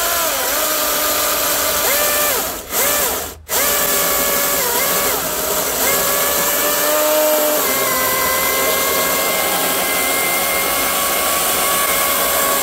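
Milwaukee M18 Fuel cordless chainsaw's electric motor whining as the chain cuts through a log. Its pitch dips under load and shifts with the variable-speed trigger. About three seconds in, the motor briefly stops and picks straight back up.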